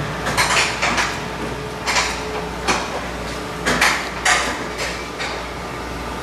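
Irregular metallic clanks and clinks of hand tools and suspension parts, about ten short knocks spread unevenly over a few seconds, as a mechanic works under the car's rear suspension fitting coilovers. A steady workshop hum runs beneath.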